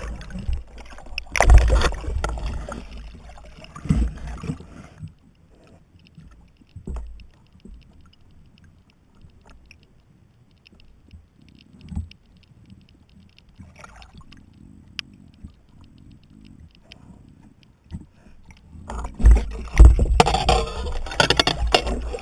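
Water splashing and sloshing around a camera held at the surface, with deep thumps. It is loud and uneven for the first few seconds, then muffled and quiet with a few faint clicks, and loud again near the end.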